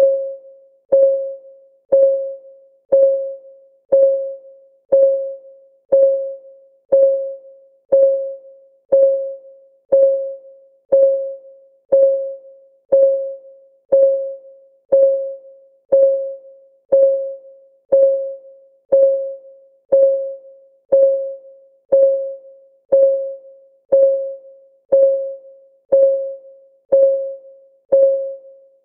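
Countdown timer's clock-tick sound effect: one short, pitched tick every second, each dying away quickly, in a steady even rhythm.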